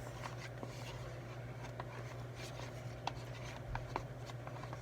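Faint scraping and light clicks of slime being stirred and worked in a bowl, over a steady low hum.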